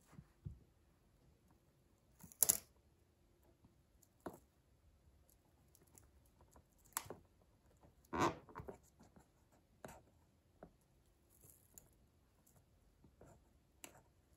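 Wooden pencil cracking and splintering under a stiletto heel: a series of separate sharp cracks and crunches. The loudest come about two and a half seconds in and around eight seconds in.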